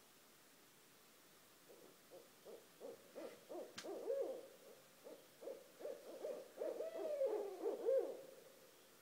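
Barred owls calling: a run of rhythmic hoots starts about two seconds in and builds to a longer wavering hoot that falls away near the end. A single sharp click sounds about four seconds in.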